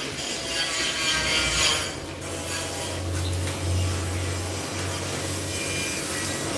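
Electric welding arc crackling and hissing steadily, louder in the first two seconds and fainter after, with a low hum about halfway through.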